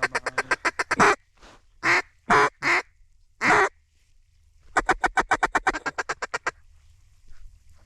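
Mallard duck call blown close by: a fast run of short notes, then four separate drawn-out hen quacks, then a second fast rapid-fire chatter of short notes, calling to passing ducks.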